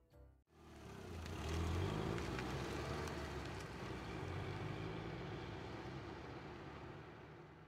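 Car driving away: the engine starts about half a second in, grows loudest within a couple of seconds, then fades steadily as the car moves off.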